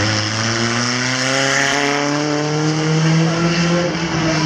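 Banger-racing car engines running on the track, one engine's note climbing steadily over about three seconds as it revs up, then holding.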